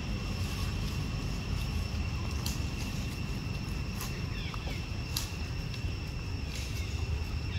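Outdoor ambience: a steady low rumble with a thin, steady high-pitched whine over it, a few sharp clicks and faint short chirps.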